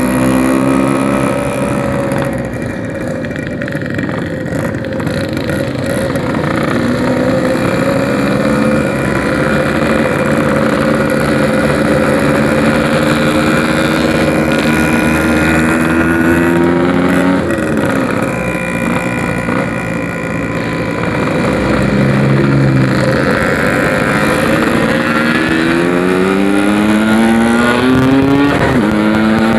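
Yamaha RX-King's 135 cc two-stroke single-cylinder engine running through a 'packing' aftermarket exhaust while riding, accelerating through the gears: the pitch climbs steadily and drops back at each shift, several times, with the sharpest drops late on.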